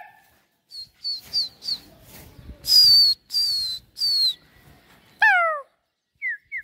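Birds calling with short, high-pitched falling notes. The loudest three come about three seconds in, and a quick run of several falling calls follows near the end.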